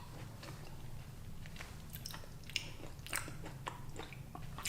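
Close-miked eating sounds: a person chewing food with irregular wet mouth clicks and smacks, a few sharper ones in the middle, over a faint steady low hum.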